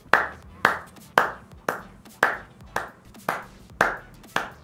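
Hands clapping a steady beat, about two sharp claps a second, as a rhythm cue for an aibo robot dog to dance to.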